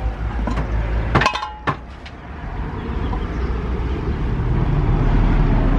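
An aluminium pot lid clinks with a short metallic ring about a second in, followed by a second lighter click, over a steady low rumble.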